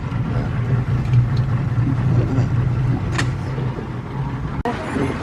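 Boat motor running with a steady low hum, easing off near the end.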